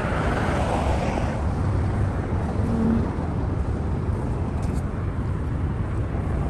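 Outdoor roadside ambience: a steady low rumble of wind on the phone microphone mixed with road traffic, with a louder hiss swelling and fading in the first second and a half.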